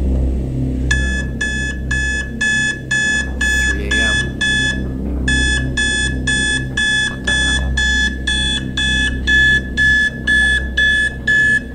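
Digital alarm clock going off, beeping at one high pitch about twice a second, with a short break near the middle.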